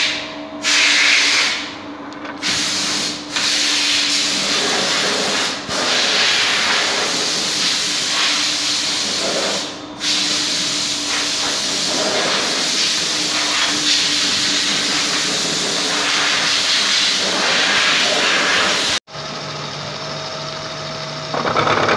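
Steady, loud machine-shop hiss with a faint hum, broken by a few sudden cuts. About 19 seconds in, after a sudden break, a vertical milling machine runs with a steady low hum.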